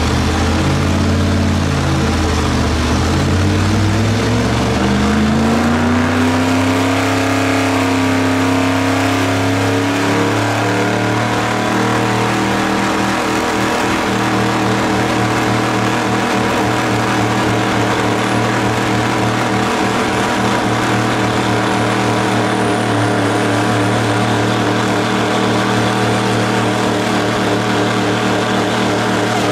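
An old military-style pickup truck's engine is held at high revs during a burnout, its rear tyres spinning and smoking. The engine note climbs unevenly over the first several seconds, then holds a steady high pitch.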